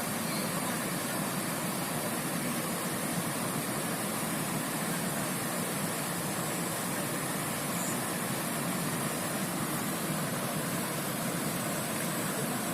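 Steady rushing of river water flowing over rocks, an even, unchanging hiss.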